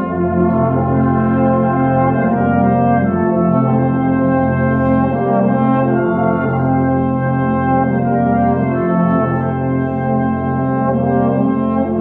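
A full brass band of cornets, horns, euphoniums, trombones and basses playing a slow piece in held chords that change every second or two; the bass notes come in at the start.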